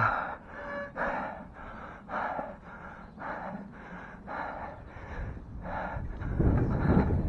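A man panting hard, out of breath from riding, with heavy breaths at about two a second. Near the end a louder low rumble comes in.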